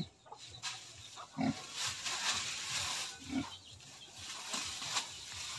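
Native sow in labor giving a couple of short low grunts while rooting through and rustling the dry cogon grass bedding with her snout: pre-farrowing nest-building.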